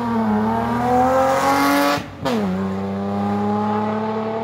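Rally car engine at full throttle, its revs climbing as it approaches. About two seconds in the sound cuts out for a moment, as at a gearchange, then it pulls on at a lower pitch as the car passes and drives away.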